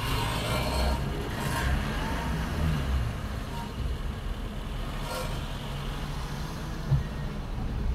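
Car driving on city streets: a steady low engine and road rumble, with two short hisses, one about a second and a half in and one about five seconds in.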